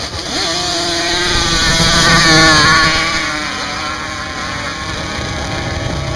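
Off-road racers' engines at full throttle in a sand hill drag, launching up the dune: the engine note rises sharply just after the start, is loudest about two seconds in, then fades as they climb away.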